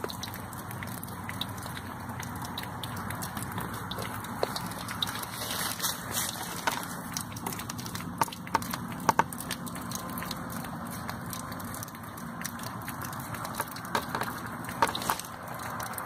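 Water rushing and spraying from a burst water heater supply line, a steady rush with scattered sharp clicks.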